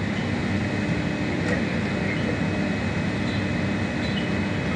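Steady low mechanical drone of running engines, with a faint steady high whine over it.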